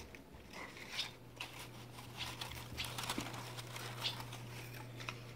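Faint, scattered rustling and light clicks from a fox squirrel moving about in its enclosure.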